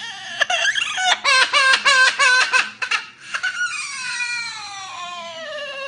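Baby crying: a run of quick, choppy sobbing cries for about three seconds, then one long wail that slides steadily down in pitch.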